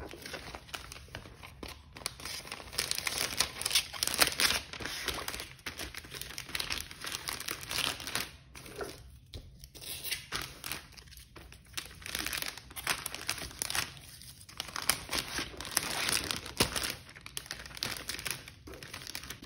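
Clear self-seal plastic bag crinkling and rustling irregularly as a boxed smartwatch, a strap pack, a card and wrapped candies are slipped into it and pressed flat.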